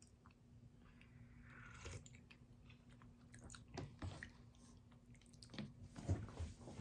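Faint sounds of a person eating a seafood congee-shop meal: soft chewing with scattered small clicks, a little louder near the end.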